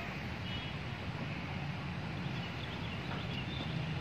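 Steady low background hum of an outdoor city park, with a few faint high chirps scattered through it.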